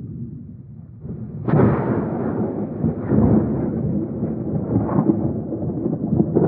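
Thunder from a nearby lightning strike. A low rumble breaks into a sudden loud thunderclap about one and a half seconds in, then rumbles on with a couple more cracks near the end.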